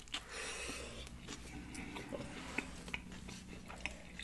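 Close-miked chewing of a soft pork carnitas taco in a tortilla: small wet mouth clicks and smacks over a low steady hum.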